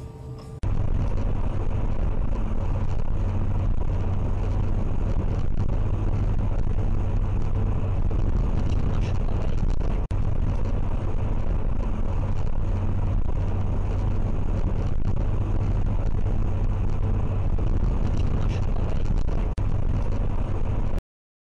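Steady road, tyre and engine noise inside a car cruising at speed, heard through a dashcam microphone, with a deep rumble. It starts suddenly about half a second in and cuts off abruptly near the end.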